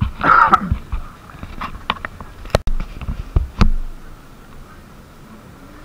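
Sharp knocks and clatter, about half a dozen in the first four seconds with a short rushing scrape near the start, as an electric motorcycle is moved off and ridden across the pavement; no engine sound, then only a faint hiss.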